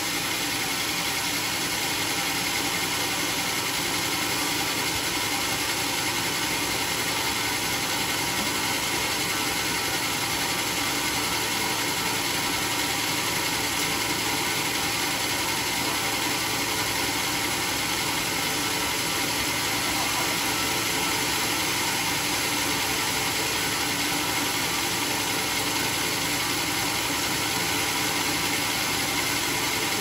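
Sawmill machinery running with a steady, unchanging mechanical noise.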